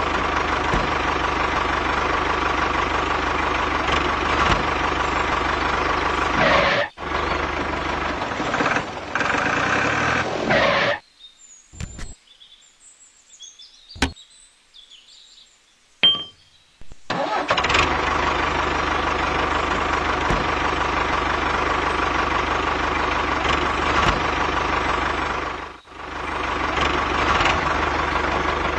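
Tractor engine running steadily. It cuts out briefly about seven seconds in, then stops for about six seconds in the middle, when only a few sharp clicks are heard, and starts running again.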